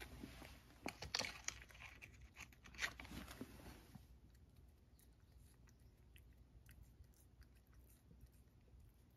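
A cat chewing Churu Bits treats taken one at a time from the hand. A quick run of crisp crunches comes in the first few seconds, loudest about one second in and again near three seconds, then fades to faint chewing clicks.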